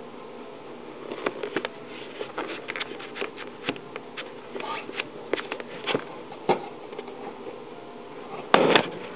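A cat's claws scratching and rubbing at a rubber balloon in a run of small clicks and squeaks, then the balloon bursts with a sharp pop near the end.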